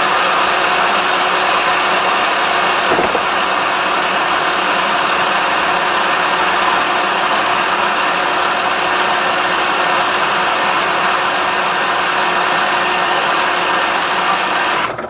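Motor of a flexible-shaft drain cleaning machine running steadily while its cable is fed into a blocked kitchen sink drain, stopping abruptly near the end.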